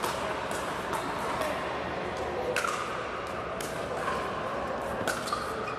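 Irregular sharp pops of pickleball paddles hitting plastic balls across a large indoor hall, some with a short echoing ring, over a steady din of the hall.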